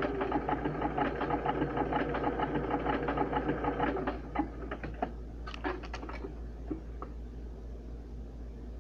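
Electric sewing machine stitching a rolled hem, running with a fast, even needle rhythm and stopping about four seconds in; a few separate, slower ticks follow a second or two later.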